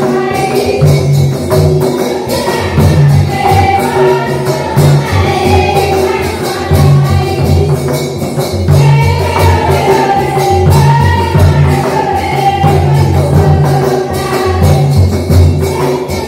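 Tribal folk dance music: voices singing together over a steady, rhythmic drum beat, with sharp jingling percussion strokes on the beat.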